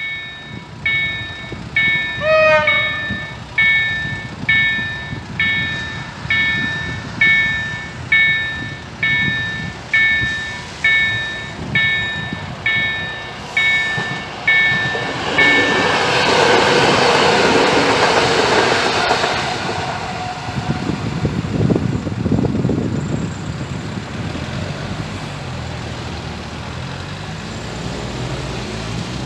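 Level-crossing warning bell striking about every three quarters of a second. It stops about halfway through as an EN57-series electric multiple unit runs over the crossing with a loud rush of wheel and train noise, followed by road traffic moving over the crossing.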